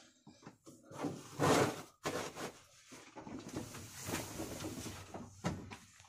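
Irregular rustling and a few light knocks, as of things being handled inside a backhoe loader's cab, with no engine running.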